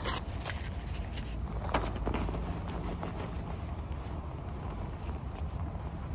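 Steady low rumble, with scattered clicks and rustles of handling close to the microphone.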